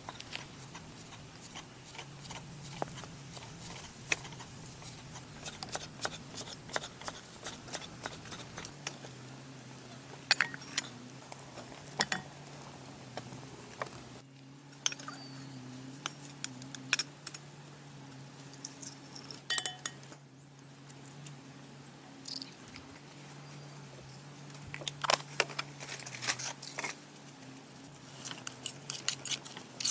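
Scattered sharp clicks and taps, with a quick even run of clicks near the end, over a faint steady low hum.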